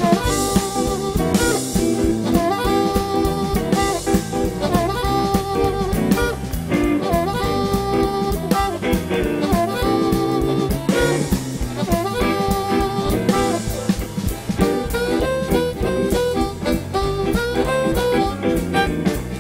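Live blues band: an amplified harmonica, cupped against a handheld microphone, plays a lead line with bent notes over drum kit and electric bass.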